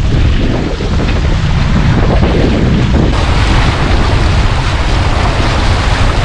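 Wind buffeting the on-board camera microphone over the rush of lake water along the hulls of a Hobie Getaway catamaran under sail. A heavy low rumble with a hiss that grows brighter about three seconds in.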